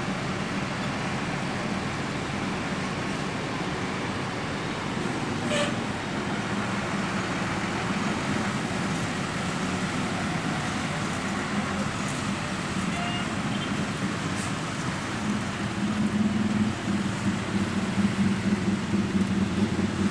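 Road traffic in a jam: a steady noise of idling and slowly moving vehicles, with a low engine hum that grows louder and pulses for the last few seconds.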